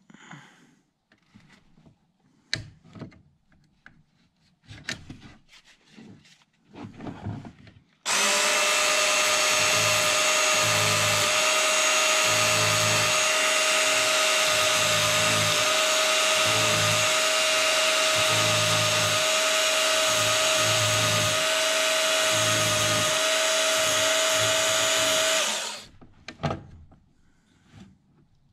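Chainsaw chain links clinking and rattling as the chain is handled. About eight seconds in, a Work Sharp Knife & Tool Sharpener's small electric belt-sander motor starts and runs steadily with a fixed whine and an irregular low pulsing as its abrasive belt is touched to the chain's cutter teeth to knock off burrs. It cuts off abruptly near the end.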